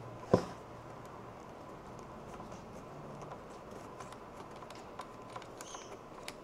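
A sharp click as a multi-pin handpiece connector is pushed into the soldering station's front socket, followed by faint small ticks and scrapes as its threaded locking collar is turned by hand.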